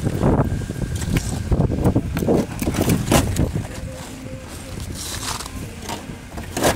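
Footsteps crunching over an icy, salted sidewalk with slush and chunks of ice on it, as irregular steps for about three and a half seconds. The steps then stop, leaving quieter handling noise.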